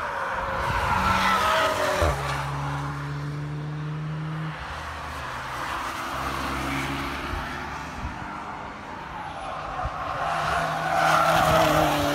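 Hot hatchbacks, a Renault Mégane RS and a Mini among them, driving past on a racing circuit one after another. Their engines hold steady revs under tyre noise, and the sound swells as a car goes by about a second in and again near the end.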